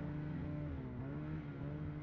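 Snowmobile engine running steadily, its pitch dipping briefly about halfway through and climbing back.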